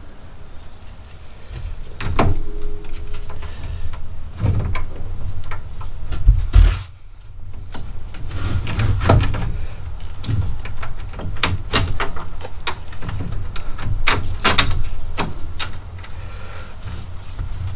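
Irregular metal clanks, clicks and knocks of hand tools and suspension parts being handled as a coil-over shock is refitted to a UTV's front suspension.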